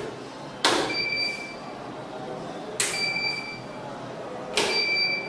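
Active-108 burglar alarm control panel being set to night mode: three sharp clicks about two seconds apart, each followed by a steady, high electronic beep lasting under a second.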